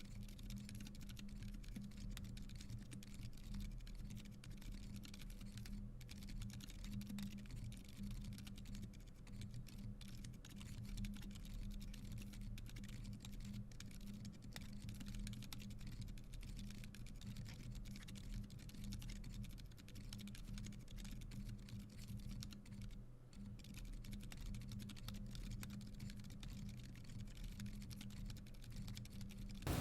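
Continuous typing on a custom mechanical keyboard (Iron165 R2, aluminium plate) fitted with Boba U4 silent tactile switches: a quick, irregular run of soft, damped keystrokes, with a faint steady low hum underneath.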